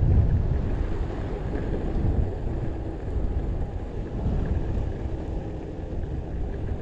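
Wind buffeting the microphone over the steady rolling rumble of a Possway T3 electric skateboard under way, with a few louder gusts.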